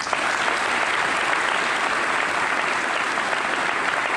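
Large audience applauding: clapping breaks out at once and holds steady.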